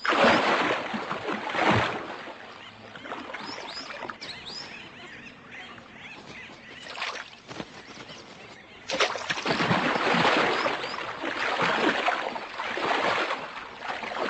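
Birds chirping over bursts of splashing water, with the heaviest splashing at the start and again through the second half.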